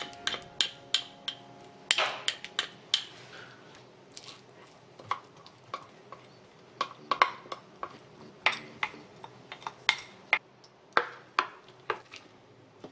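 Ingredients being tipped into a stainless steel mixing bowl, with a series of sharp, irregular clinks and taps of utensils against the metal bowl.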